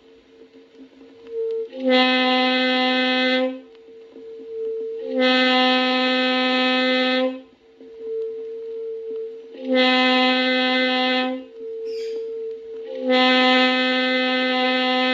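A wind instrument sounding long held notes: four loud notes of about two seconds each on the same low pitch, with a softer, higher note held in the gaps between them.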